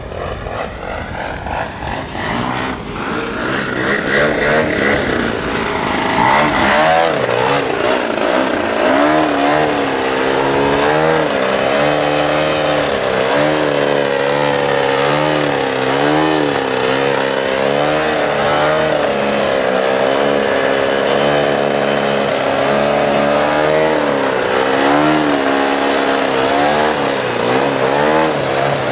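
Large gasoline engine of a giant-scale RC aerobatic plane running, growing louder over the first several seconds as the plane comes in. It then holds a continuous engine note whose pitch rises and falls again and again as the throttle is worked to keep the plane hanging nose-up in a hover.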